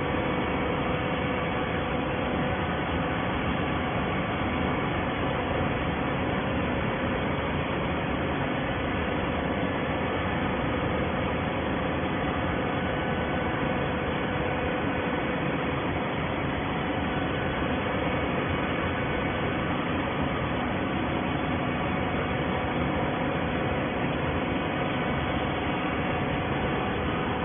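Carton baler machine running: a steady mechanical hum and hiss with a faint constant tone, unchanging throughout.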